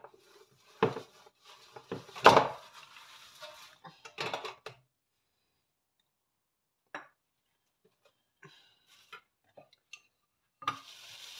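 Stainless steel steamer pot and tiers clanking and clattering as momos are loaded into the steamer. The loudest knock comes about two seconds in, then a few scattered small clicks, and more clatter near the end.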